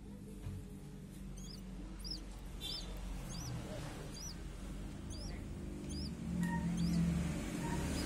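Downy eagle chick giving a series of about eight short, high, thin peeps, each rising and falling, spaced less than a second apart. A low rumble grows louder near the end.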